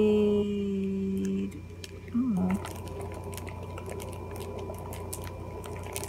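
A drawn-out spoken word and a short voiced sound, then faint scattered taps and clicks of a small cosmetics box being turned over in the fingers.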